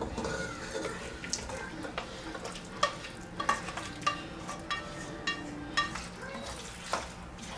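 A utensil scraping a thick cream sauce with chicken out of a stainless skillet into a pot of pasta, then stirring it in. Repeated short clinks of the utensil against the metal pans ring briefly over a low wet stirring noise.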